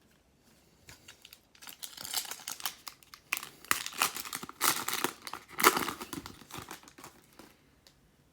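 Plastic wrapper of a trading-card pack crinkling and tearing as it is opened by hand: a run of crackling rustles, starting about a second in, loudest through the middle and dying away near the end.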